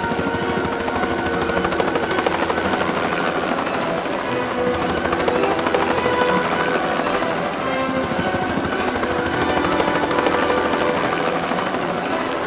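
Helicopter in flight, its rotor chop and engine running steadily and loudly without let-up.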